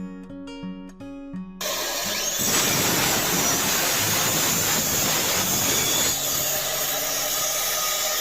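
Circular saw starting and cutting through wood in a crosscut jig, coming in abruptly about a second and a half in, after a few notes of acoustic guitar music.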